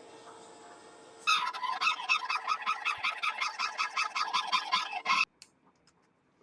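Deckel FP2 milling machine running with a Lenz boring head; about a second in, the single-point tool bites into the cast iron and gives a loud rhythmic chatter, about six to seven strokes a second. It cuts off suddenly near the end, leaving a single click.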